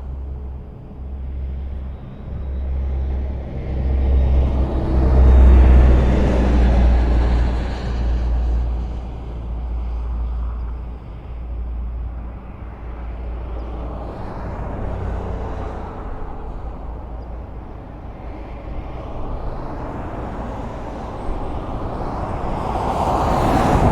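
Highway traffic: a steady wash of tyre and engine noise as vehicles pass. A deep rumbling pass swells loudest about five seconds in, and another vehicle approaches near the end.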